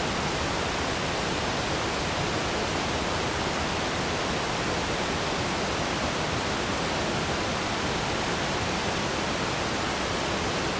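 Waterfall: falling water rushing in a steady, even roar-like hiss that does not change.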